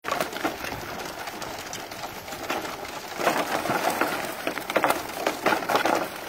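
Canada geese scrambling out of a trailer, wings flapping and feet clattering on its wooden ramp, in several bursts that grow louder in the second half.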